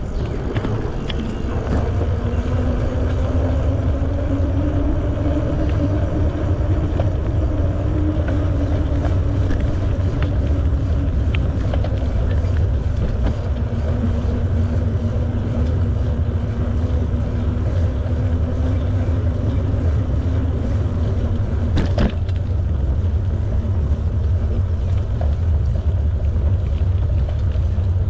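Riding noise from a bicycle in motion: wind rumbling on the microphone, with a hum from the rolling bike that slowly rises and falls in pitch, and one sharp click about 22 seconds in.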